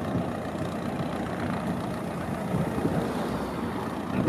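Aircraft tow tractor running as it pulls a plane across the apron: a steady, low engine rumble with no strong pitch.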